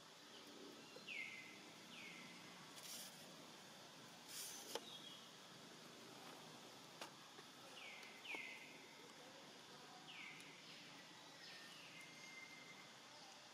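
Faint forest ambience: a short, high chirp that slides downward in pitch, repeated several times a second or two apart, with a few faint clicks.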